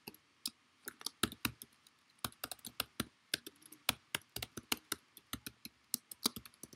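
Computer keyboard being typed on: an irregular run of sharp key clicks, several a second.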